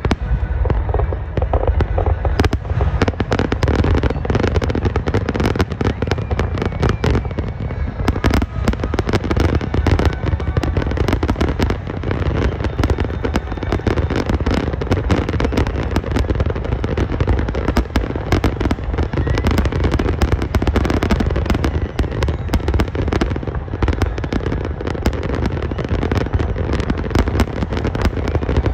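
Aerial firework shells bursting in a rapid, unbroken barrage of booms and crackles, the finale of a fireworks display.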